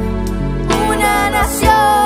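Song with instrumental backing, with voices singing a slow melody that comes in a little before the middle.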